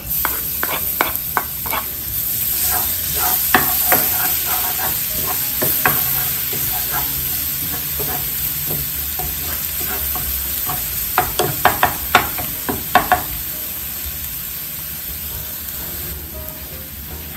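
Minced garlic sizzling steadily in hot oil in a wide frying pan as it sautés. A wooden spoon knocks and scrapes against the pan now and then, in a cluster in the first few seconds and again about two-thirds of the way through.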